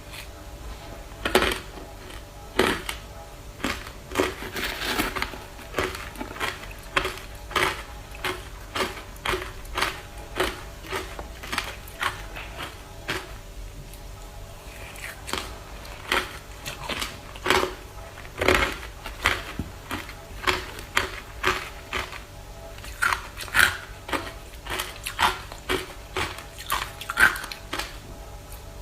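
Ice being bitten and chewed up close, a run of sharp, irregular crunches about one to two a second.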